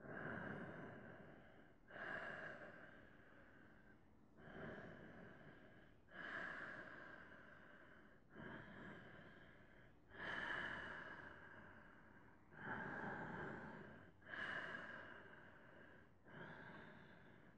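Slow, audible breathing through the nose, close to the microphone: about nine soft rushes of air, roughly one every two seconds. Each starts suddenly and fades away, as inhales and exhales alternate while a yoga twist is held.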